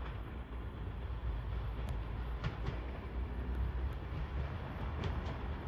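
Passenger train pulling out of the station and approaching, heard as a steady low rumble of locomotive and wheels. Faint clicks come in pairs about two and a half seconds in and again near the end.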